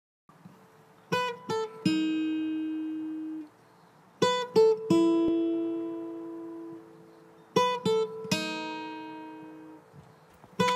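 Acoustic guitar music: three short phrases of plucked notes, each ending on a held note that rings and slowly fades.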